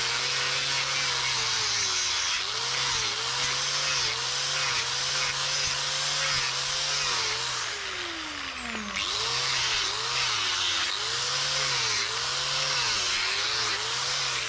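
Hand-held electric power tool working a workpiece: its motor runs with a wavering pitch that dips as it takes load, over a strong hiss. About eight seconds in it is switched off and winds down, then starts up again a second later.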